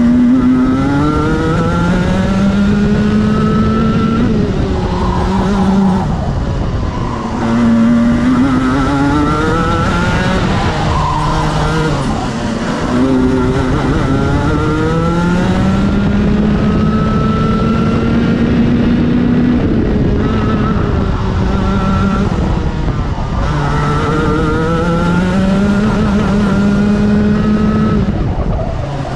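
Racing kart's engine heard from on board at full throttle, its revs climbing through each straight and falling away into the corners, about five times over, with a steady rushing noise beneath.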